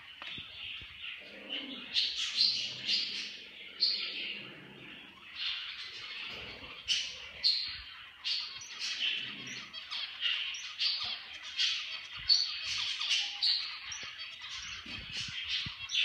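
Small caged pet birds chirping and twittering without pause, with sharper, higher calls standing out every half second or so.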